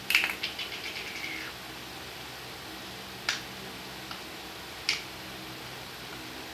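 A small hard object clattering on a tiled floor as a kitten bats it: a sharp click and about a second of rapid rattling with a brief ringing tone as it spins and settles, then single sharp clicks about three and five seconds in.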